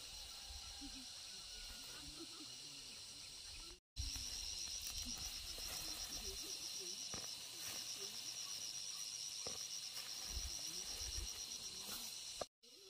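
Insects trilling steadily in a high, fast, even pulse, with occasional low rumble underneath. The sound cuts out completely for a moment about four seconds in and again near the end.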